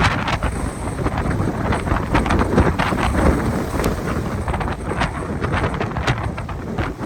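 Gusty typhoon wind buffeting a phone's microphone in loud, irregular blasts, over the noise of a rough, storm-driven sea.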